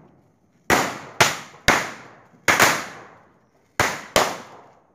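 Firecrackers going off: about six sharp, loud bangs in quick, uneven succession, each with a short echo.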